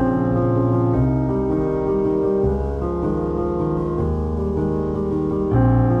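Background piano music: sustained chords that change every second or so.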